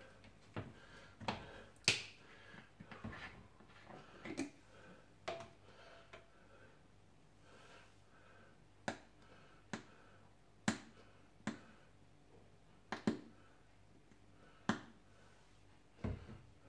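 Fingers tapping and clicking on a plastic ketchup squeeze bottle: sharp single taps, irregularly spaced about a second apart, the loudest about two seconds in.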